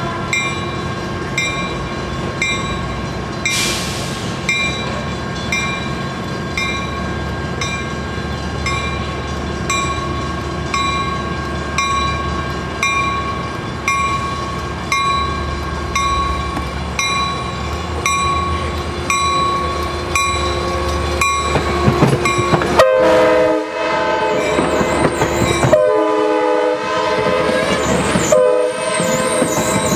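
Departing Coaster push-pull commuter train: a bell rings about once a second over the low rumble of the F59PHI diesel locomotive pushing at the rear. About three-quarters of the way through, the cab car's Nathan K5LA five-chime horn sounds in long, loud blasts as the train passes close by.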